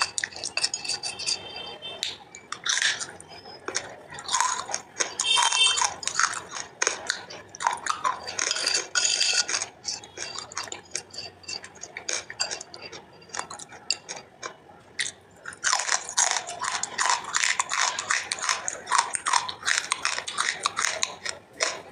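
Close-up chewing of a wet clay paste: sticky, crackly mouth sounds, along with a gloved hand squishing and scooping the paste in a plastic bag. The crackling gets denser for the last several seconds.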